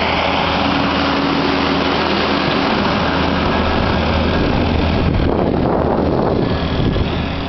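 Snowplow truck's engine running, a steady low hum under a loud rushing noise that eases a little near the end.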